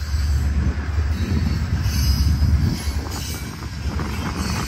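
Freight cars of a passing manifest train, loaded steel coil cars and tank cars, rolling by on the mainline: a steady low rumble of wheels on rail, with a few short high-pitched wheel squeals.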